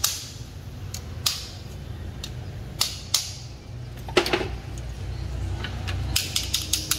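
Sharp clicks and knocks of tools and parts being worked on a car door latch assembly. The loudest knock comes a little after four seconds in, and a quick run of clicks follows near the end.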